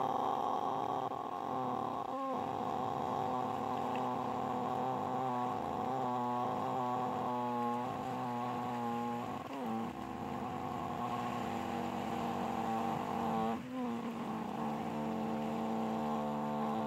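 A sustained drone of several steady tones held together, with a slight wavering in places and two brief dips in loudness, about ten and fourteen seconds in.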